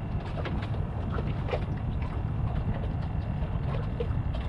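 Small waves lapping against a boat hull in irregular light taps and slaps, a few a second, over a steady low wind rumble on the microphone.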